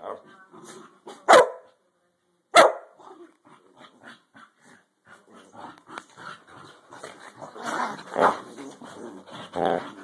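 Dogs playing rough: two sharp barks early, then a run of play growling and scuffling with a few louder barks toward the end.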